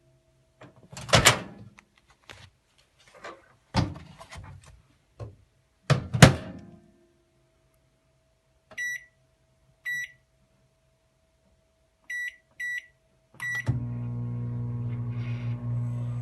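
Microwave oven: the door clunks several times, loudest about a second in and around six seconds in, then five short keypad beeps, and near the end the oven starts running with a steady hum.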